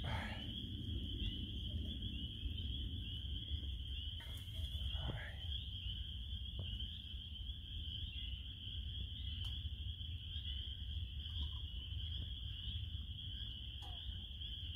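A steady, high-pitched chorus of small calling animals over a low, steady rumble, with a couple of faint knocks.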